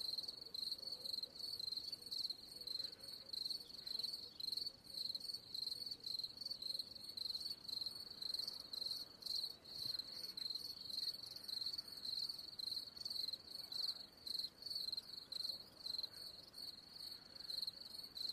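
Crickets chirping in a steady, fast-pulsing high trill.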